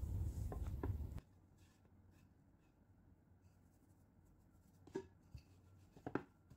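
A low, steady background rumble that cuts off abruptly about a second in, then near quiet with a few faint taps and knocks from hands and a rolling pin on a floured wooden rolling board.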